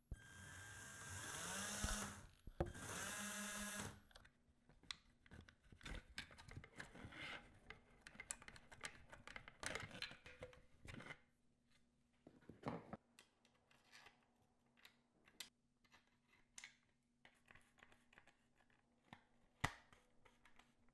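A small electric motor whines twice in short runs, the first rising in pitch as it spins up and the second holding steady. Then come scattered clicks and taps of parts being handled.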